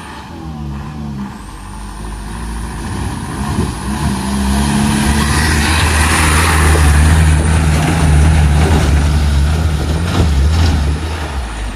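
Truck engine running as the truck drives past close by, building to its loudest as it passes, about six to eight seconds in, then easing off. A hiss of tyres on the wet road runs under it.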